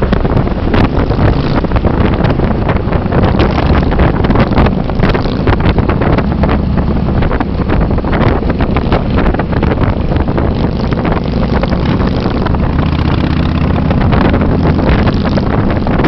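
Yamaha Road Star 1700's V-twin engine running steadily at cruising speed, heard under heavy wind buffeting on the microphone.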